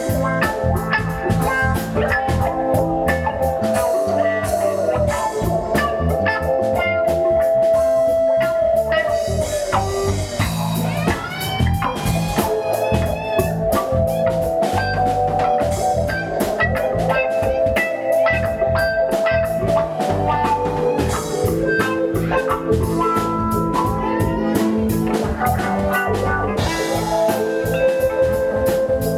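Live rock band playing an instrumental passage: electric and bass guitars, drum kit and keyboard, with held guitar notes and pitch bends over a steady beat.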